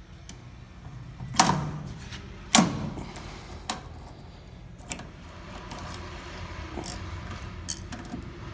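Metal clanks and clicks from a DoAll bandsaw's blade butt welder being worked, over a steady low hum. Two loud, sharp ringing strikes come about a second and a half and two and a half seconds in, followed by a few lighter clicks.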